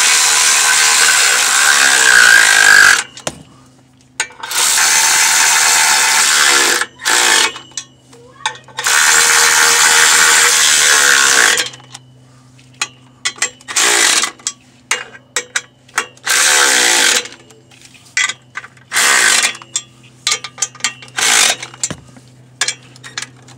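Electric impact gun running down clutch pressure-plate bolts onto the flywheel: three long runs of about three seconds, then shorter bursts as the bolts snug down one after another in a cross pattern, with clicks of the socket and bolts in between.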